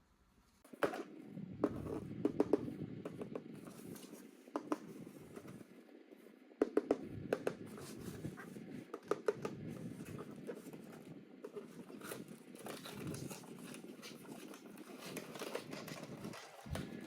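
Toys and their packaging being handled: scattered sharp clicks and scratches over a steady rustle, starting about a second in.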